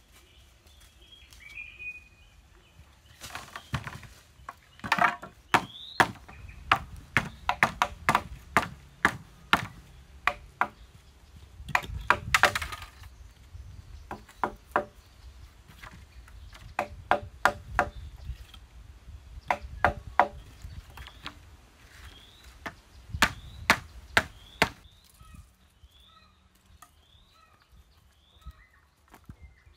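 Rapid sharp blows of a hand tool chopping or striking, in runs of several strokes at about three a second with short pauses between runs. Birds chirp before the blows begin and after they stop near the end.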